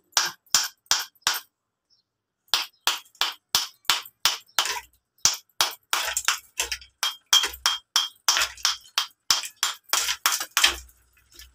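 A hand-held block of ice being chipped apart with a knife: sharp clinking chops, about three a second, with a pause of about a second near the start.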